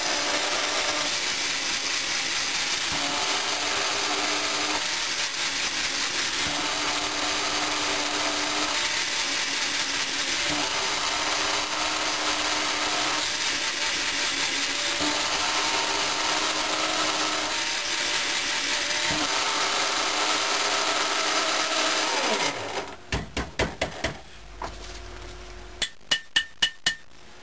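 Electric blade-type coffee grinder running steadily for about twenty seconds, its blades grinding granular potassium nitrate crystals into a fine powder, the tone shifting every few seconds as the grinder is handled. It stops suddenly, followed by a quick series of sharp clicks and knocks.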